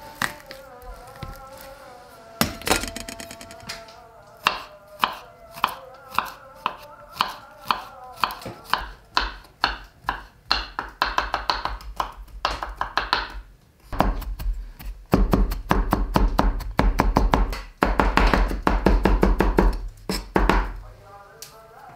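Knife chopping on a cutting board: single chops about a second apart, quickening, then rapid continuous chopping for about seven seconds that stops about a second before the end. Faint background music underneath.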